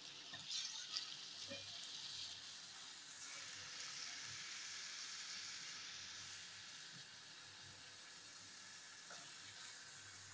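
Cubed raw potatoes, still wet from a salt-water dip, frying in hot oil in a nonstick wok with a faint, steady sizzle. A few light scrapes of the spatula stirring them come in the first second or two.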